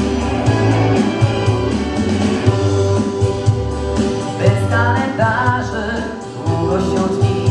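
Pop-style song accompaniment with a steady beat. A male voice sings a Polish-language song into a microphone over it from a little past halfway.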